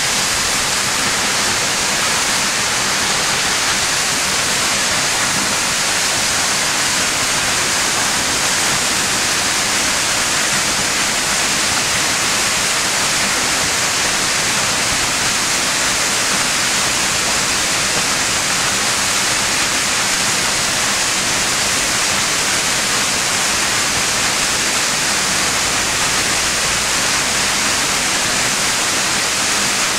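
South Falls, a 177-foot waterfall, crashing steadily: a loud, unbroken rush of falling water with a hissy, bright edge.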